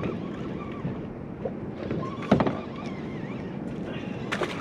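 Steady background noise of a small fishing boat on the water, with one sharp knock about halfway through and a couple of lighter clicks near the end.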